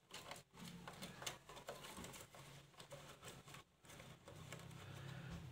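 Faint handling sounds from hands working inside a cardboard gift box: scattered light clicks and rustles, over a faint low hum.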